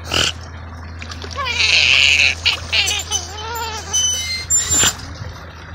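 River otter vocalizing: a short harsh burst at the start, a louder harsh hissing call lasting about a second, then wavering whining calls, and another short harsh burst near the end.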